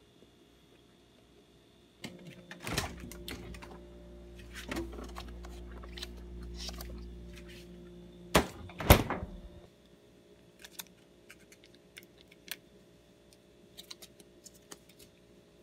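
Refrigerator opened, with knocks and rattles from things on its shelves and a low steady hum while the door stands open. Two sharp knocks about eight and nine seconds in as it is shut, then only faint small clicks and crinkles as a plastic ketchup pack is handled.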